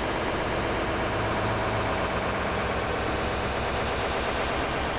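A steady, dense wall of static-like noise with a low hum underneath, from an experimental noise track.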